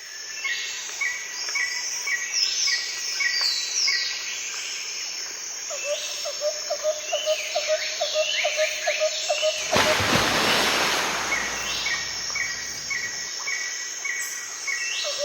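Birds calling outdoors: series of short repeated chirps and falling whistles, with a run of quick lower-pitched ticks in the middle. A loud rush of noise comes in about ten seconds in and lasts around three seconds.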